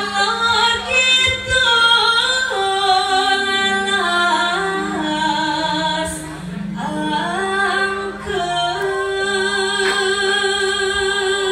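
A sinden, a Javanese female singer, singing solo into a microphone: a melismatic line with a wide vibrato. Low held notes from the accompaniment sit underneath.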